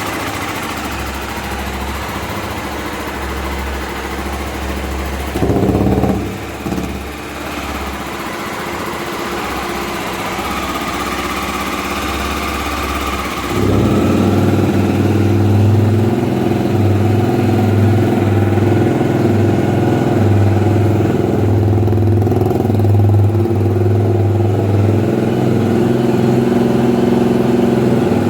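Honda Twister 250 single-cylinder engine running at idle, with a short blip of the throttle about five seconds in, then held at a steady higher speed and louder from about halfway. The engine runs without the top-end noise it had before its camshaft was secured.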